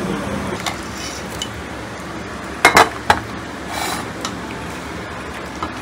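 Stainless steel kitchenware clinking as curry is ladled and plated: a steel ladle knocking against the pressure cooker and a steel plate. There are a few scattered clinks, the loudest a quick double clink about halfway through.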